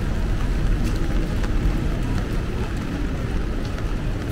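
Steady rain in a city street, with a low rumble underneath and a few faint ticks of drops.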